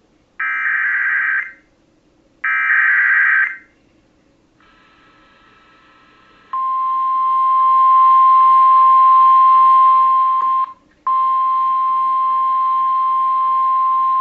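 Emergency Alert System SAME header: two roughly one-second bursts of screechy digital data tones with short gaps between them. About six and a half seconds in comes a loud, steady single-pitch warning alarm tone of the kind used by NOAA Weather Radio, which drops out for a moment near ten and a half seconds and then carries on. It announces a severe thunderstorm warning.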